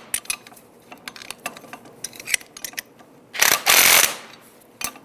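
Socket ratchet clicking in short runs as it tightens the nuts on a door hinge pin, with one louder, longer rasping burst about three and a half seconds in.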